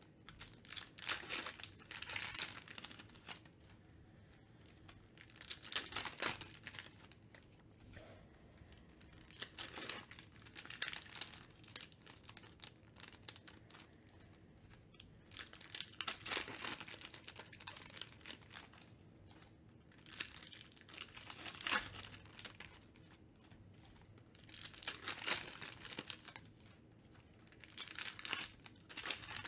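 Wrappers of Donruss Optic basketball trading card packs crinkling and tearing as the packs are ripped open by hand, in several bursts a few seconds apart.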